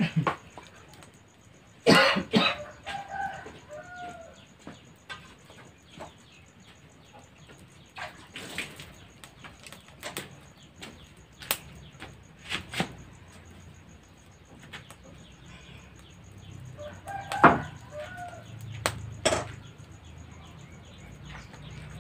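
Village chickens calling in two short bouts, about two seconds in and again near seventeen seconds, with scattered sharp clicks and knocks between.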